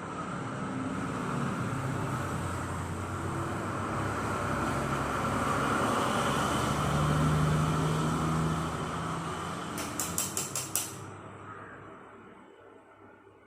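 A motor vehicle passing by, its engine sound swelling and then fading away. A quick run of about six sharp clicks comes near the end.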